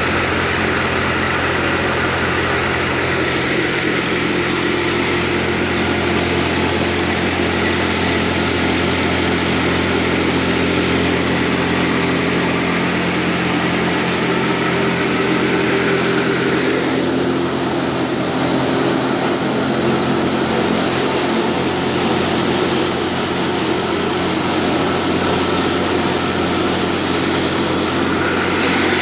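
Motor-driven grain-processing machinery, a wheat cleaner or feed grinder, running steadily with a constant hum and a dense whirring rush. The sound shifts abruptly about 17 seconds in and again near the end.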